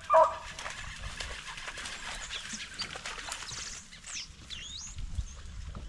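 A hunting dog gives a short bay right at the start, then a faint rustle with small clicks, and a few high chirping calls about four to five seconds in.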